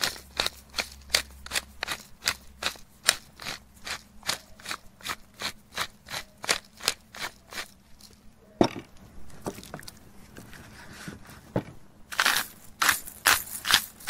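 Hand-twisted salt mill grinding coarse pink salt, a steady run of sharp grinding strokes about three to four a second. It pauses past the middle, where there are a few single knocks, then picks up again, quicker, near the end.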